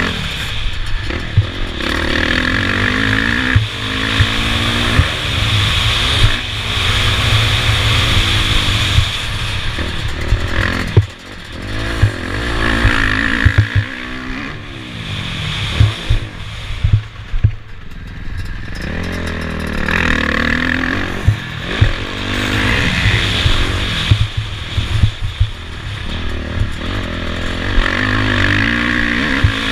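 Motocross bike engine heard from the rider's helmet, revving up and easing off over and over as it accelerates and shifts between corners and jumps, with the throttle shut briefly about eleven seconds in. Sharp knocks from the bike over the bumps come through now and then.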